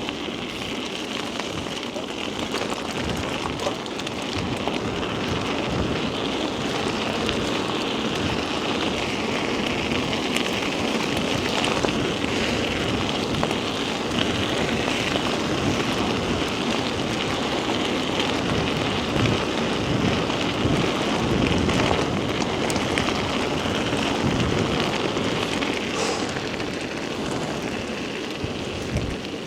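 Whyte E-160 electric mountain bike riding a wet, muddy trail: a continuous hiss of tyres rolling through wet mud and grit, with many small knocks and rattles from the bike over rough ground.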